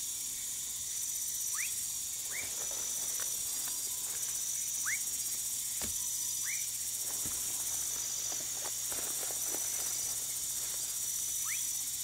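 Woodcock frog (Leptodactylus fuscus) giving its short upward-sweeping whistle calls, about five of them, a second or more apart. Behind them runs a steady chorus of night insects with a continuous high trill.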